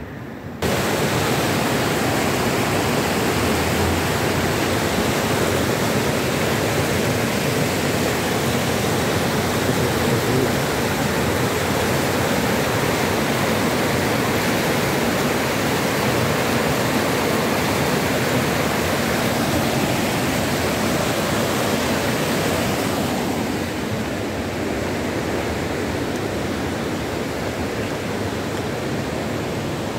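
Fast mountain river rushing over rocks: dense, steady white-water noise that starts abruptly just after the beginning and turns a little softer about three-quarters of the way through.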